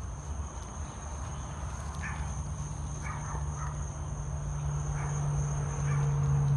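Night insects trilling in a steady high-pitched chorus, over a steady low hum that grows louder near the end, with a few faint short chirps.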